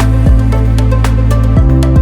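Loud electronic background music with a heavy sustained bass, regular sharp percussion hits and a chord change about one and a half seconds in.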